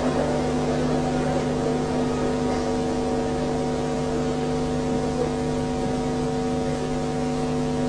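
Steady electrical hum with several constant tones over a hiss, with no voice or music over it.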